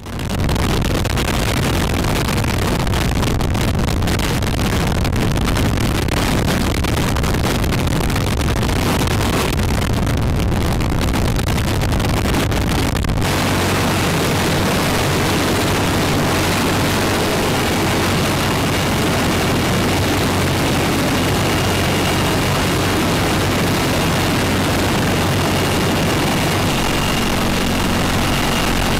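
Sikorsky CH-53E Super Stallion helicopters running on the ground: a loud, steady rush of turbine engines and rotors. About halfway through, the sound changes to a steadier low hum with a faint high whine, heard from the open rear ramp of one of the helicopters.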